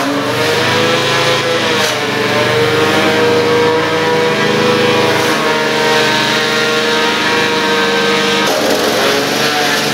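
Small engine driving a grass chopper, running steadily at high speed, its pitch sagging briefly near the start and again about eight and a half seconds in.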